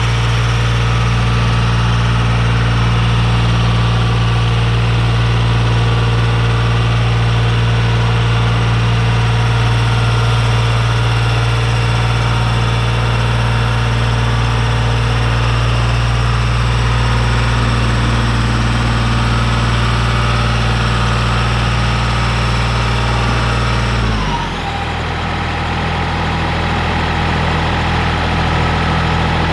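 Ford 1710 compact tractor's three-cylinder diesel engine running steadily under raised throttle, then throttled back, dropping in pitch to a lower idle near the end.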